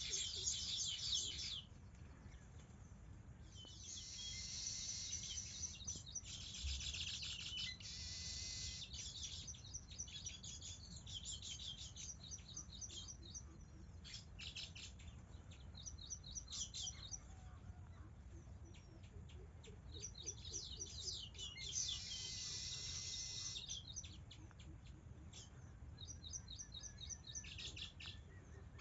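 Small birds chirping, high-pitched, in several bursts of rapid chirps with scattered single chirps between, over a steady low background rumble.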